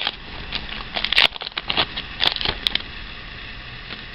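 Foil Pokémon booster pack wrapper crinkling and crackling as it is torn open and handled, a run of sharp crackles that stops shortly before the end, leaving a steady hiss.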